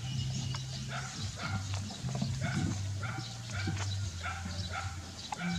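Short animal calls repeating about twice a second, over a low droning tone that shifts pitch every second or so.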